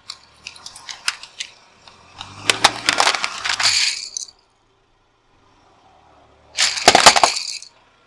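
Bundle of wooden coloured pencils cracking, snapping and clattering under a car tyre: scattered sharp clicks at first, then a dense burst of crackling about two seconds in and a second, shorter burst about seven seconds in.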